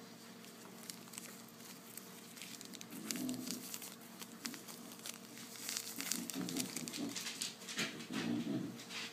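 Small plastic zip-lock bags of loose glitter crinkling and crackling as they are handled, getting busier a few seconds in, with several short, low sounds mixed in.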